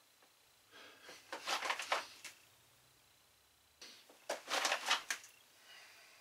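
Two short bouts of fabric rustling with light clicks, about a second in and again about four seconds in, from a pistol being handled in a cargo-pants pocket holster; the second bout is the fast draw, the holster pushed up through the pocket and the gun pulled out.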